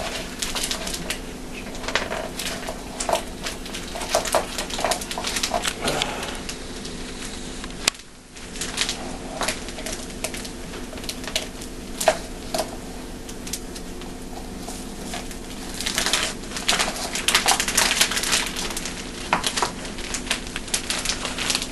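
Small clicks, scrapes and crinkles of hands working a paper cup as dry cake mix is put into it, busier in the last few seconds, over a steady low hum.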